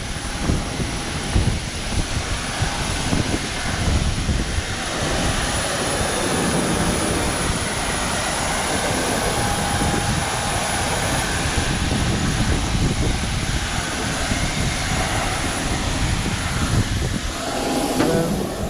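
Steady jet aircraft noise, a loud, even rushing hiss with a faint high whine running through it.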